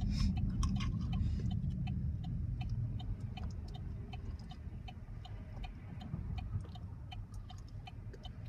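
Low road and engine rumble inside a moving GMC's cabin, with a turn-signal indicator ticking steadily about twice a second.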